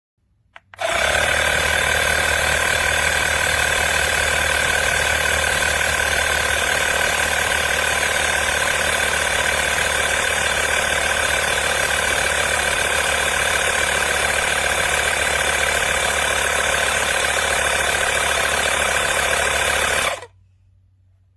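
Fanttik X8 APEX cordless tire inflator's compressor running, a steady loud buzzing hum with a constant whine. It starts with a quick rise in pitch just under a second in and cuts off suddenly about a second before the end.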